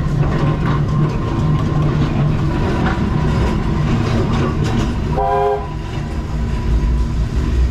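Tram running along the track: a steady low hum with clattering over the rails. A short whistle sounds about five seconds in.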